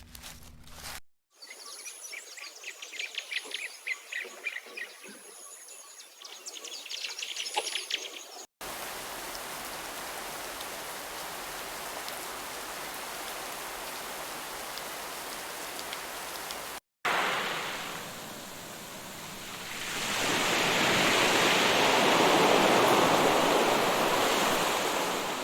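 A sequence of outdoor nature sounds. The last few footsteps, then birds chirping for about seven seconds. After a cut comes a steady, even rush of running water, and after another cut a louder rush of water that swells and fades back down.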